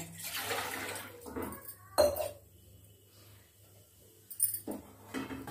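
A glass of water poured from a steel tumbler into a steel pan, splashing for about two seconds, followed by a single sharp metal clink and then a few faint taps near the end.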